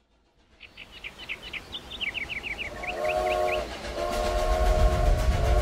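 A steam locomotive's chord whistle blows, a short blast about three seconds in and then a long one that carries on, over a low rumble of the train that grows louder. A quick series of high chirps runs through the first few seconds.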